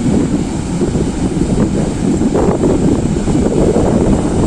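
Loud, steady rushing of flowing water, a rough, even noise without separate events.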